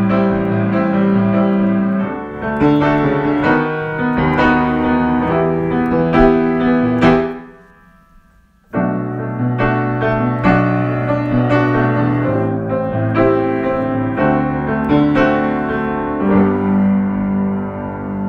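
Solo piano playing a slow song arrangement in chords. It fades to a brief pause a little before the middle and then resumes.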